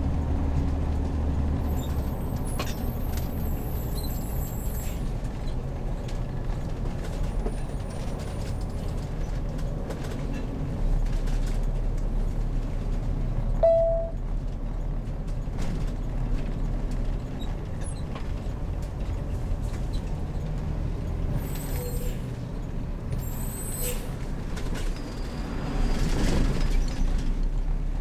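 The engine of a heavy bus-based motorhome running at low speed while it moves off, a steady low rumble. There is a short beep about halfway through and a louder rush of noise near the end.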